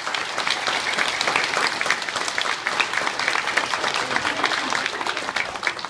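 Sustained applause from a large audience of children and adults, many hands clapping at once at a steady level.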